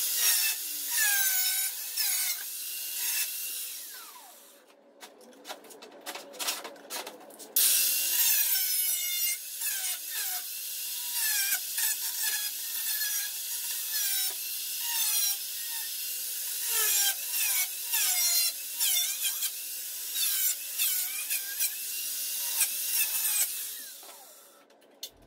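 Handheld power tool cutting through thin sheet steel: a steady rasping cut with a wavering metallic squeal. It pauses for about three seconds after four seconds, with a few clicks in the gap, then cuts again until it stops shortly before the end.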